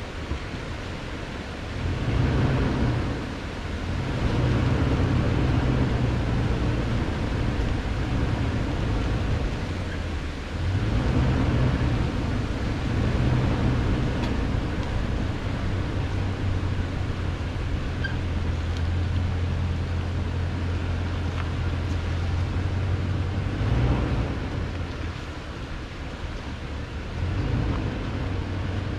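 2018 Toyota Tundra's V8 engine running at low speed on a dirt trail, its low drone swelling and easing off several times as the throttle is worked, over a steady hiss of tyre and wind noise.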